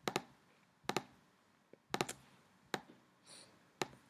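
Computer mouse clicked repeatedly: five sharp clicks or quick double clicks, about one a second.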